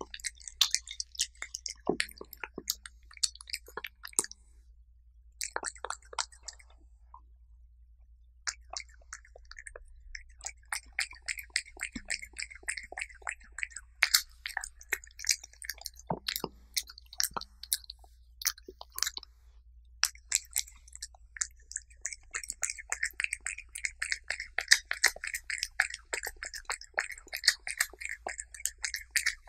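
Cat eating soft chicken-breast puree close to a microphone: rapid wet chewing clicks, with two short pauses in the first nine seconds.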